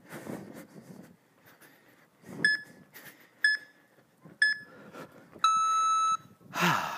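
Interval timer counting down the last seconds of a rest period: three short beeps about a second apart, then one long beep marking the start of the next interval.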